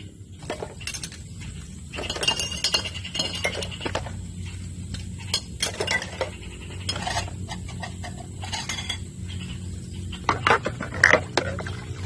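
Glasses and dishes clinking against each other now and then as they are hand-washed in a basin of soapy water, with a few louder knocks near the end.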